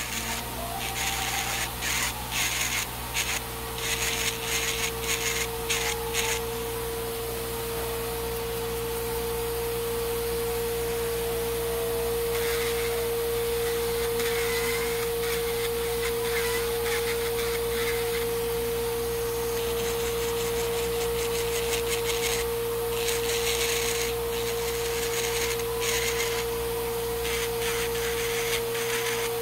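Electric nail drill running at a steady pitch while its thin bit grinds down a thick, fungus-infected toenail. A rough scraping comes and goes as the bit bites into the nail, heaviest near the start and again late on.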